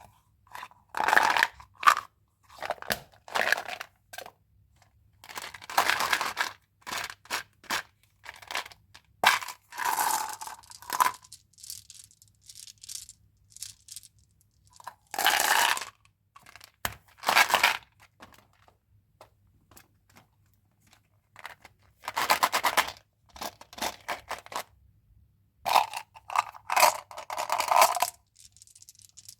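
Candy packaging being handled and torn open, in irregular bursts of crinkling and tearing: some last about a second, with short clicks and taps between them.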